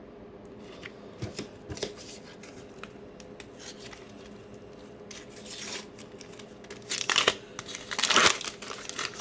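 A sticker pack's paper wrapper being torn open and crinkled by hand: a few light ticks, then several short rips and rustles in the second half, the loudest about eight seconds in.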